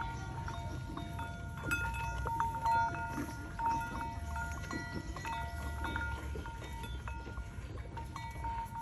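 Bells on livestock clinking and ringing again and again, each strike ringing on, over faint sounds from the animals.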